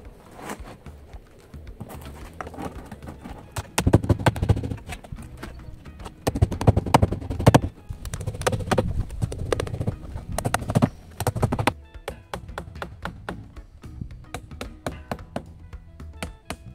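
A hammer tapping small nails through thin wooden strips into roofing felt on a wooden dog kennel roof, in runs of quick knocks, heaviest in the middle. Background music plays along, most clearly near the end.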